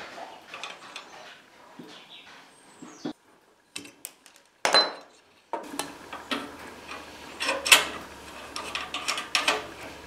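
Spanner and brass compression fittings clinking and knocking as copper steam-pipe connections are fitted and tightened. The clicks come irregularly, the loudest about halfway through and again near the end, with a short silent gap a few seconds in.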